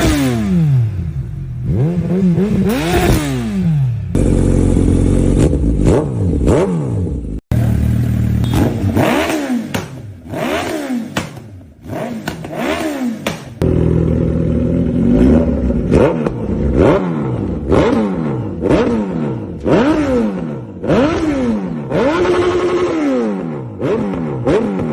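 Suzuki Hayabusa inline-four engine blipped through aftermarket full-system exhausts, revving sharply up and dropping back again and again. The exhaust tone changes abruptly a few times as one bike's clip gives way to the next.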